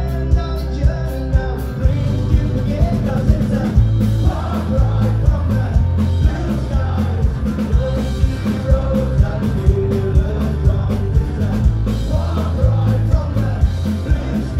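Live folk-punk band playing a song: drums driving a steady beat about twice a second under bass, guitars and singing, amplified through a club PA.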